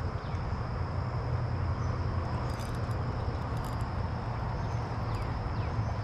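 Steady high insect drone over a constant low rumble, with a few faint ticks and several short falling chirps in the last second or so.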